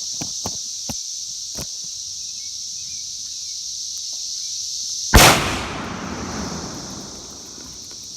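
One loud blast from an AR-15 rifle firing at a tannerite target about five seconds in, its rumble rolling on for over a second. Insects chirr steadily throughout, and a few faint clicks sound in the first two seconds.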